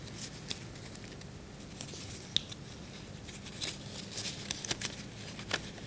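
Folded, cut paper being opened out by hand: faint rustling and crinkling with a few light ticks.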